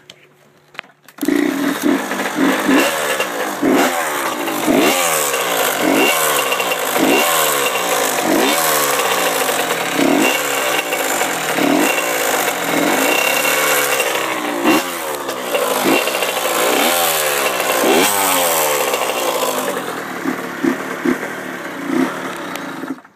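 Honda CR85R two-stroke dirt bike engine coming to life about a second in and being revved in quick blips about once a second, the pitch rising and falling with each, with lighter blips near the end before it cuts off. The owner says the engine makes a ticking noise and has no powerband.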